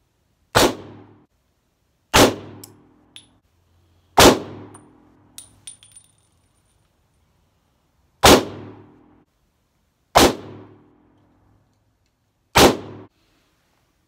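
Six single shots from a C96 Mauser broomhandle pistol in 7.63×25mm Mauser, each a sharp crack with a short ringing tail, roughly two seconds apart with one longer pause of about four seconds in the middle. A few faint clicks fall between the early shots.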